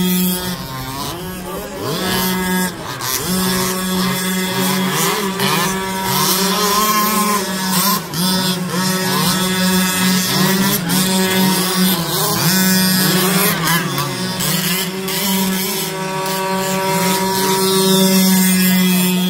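Small petrol engines of several 1/5-scale RC cars running at once: one holds a steady, high-pitched buzz while others rise and fall in pitch as they are throttled on and off.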